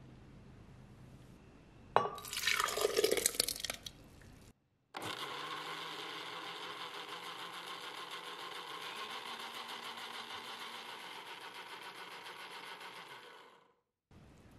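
A sharp knock followed by about two seconds of clattering and splashing. After a brief cut, a countertop blender with a glass jar runs steadily for about eight seconds, blending an oat drink, and stops near the end.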